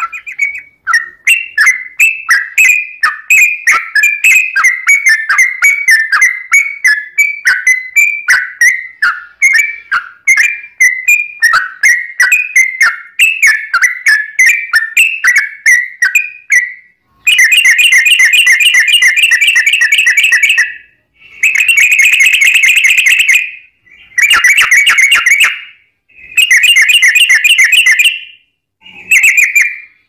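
Yellow-vented bulbul (trucukan) song: a long run of quick chirping notes, then, a little past halfway, five rapid rolling 'ropel' trills with short gaps between them, the first one the longest.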